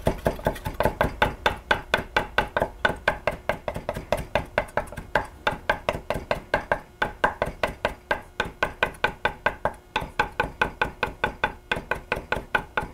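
Chef's knife chopping parsley on a wooden cutting board: a fast, even run of blade knocks against the wood, about five a second.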